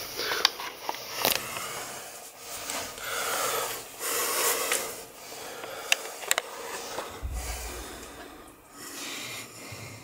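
A person climbing down a narrow stone shaft: audible breaths and the scuffing of clothes and shoes against the rock walls, with a few sharp knocks, two of them about six seconds in, and a low thump soon after.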